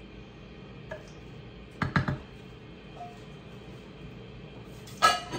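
Kitchenware being handled: a few sharp knocks, three close together about two seconds in, then a louder clatter with a ringing tone just before the end.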